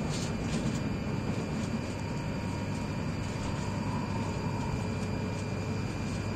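Steady running noise of a Hokuriku Shinkansen train at high speed, heard from inside the passenger cabin: an even low rumble and rush.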